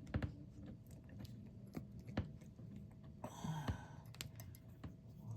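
Scattered small metal clicks and scrapes as a stiff advance spring is worked onto the weights of an MSD distributor with a small pocket screwdriver, with a short scraping rasp about three and a half seconds in.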